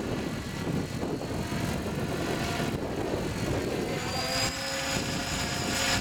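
700-size radio-controlled scale Airwolf helicopter in flight: steady rotor noise under a buffeting rumble of strong wind, with a high whine coming in about four seconds in.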